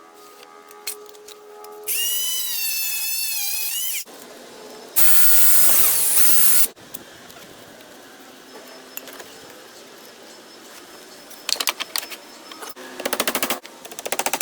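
Power tool in short, edited-together bursts: a whine that wavers in pitch, then a loud noisy burst, then a rapid rattle of clicks near the end.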